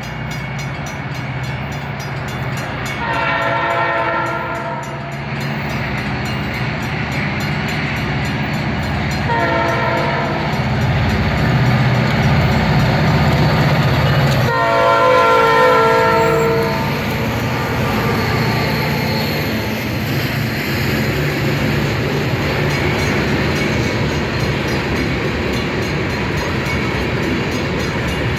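Connecticut Southern diesel freight locomotive sounding its horn three times, the second blast shorter, as it approaches. Under the horn runs the steady low rumble of its engine and the rolling train, loudest as it draws near.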